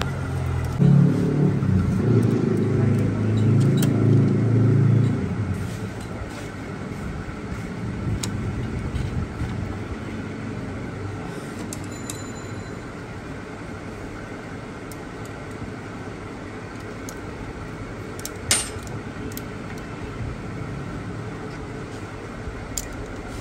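A motor engine running for about five seconds, then dying away into a steady background hum, with one sharp click late on.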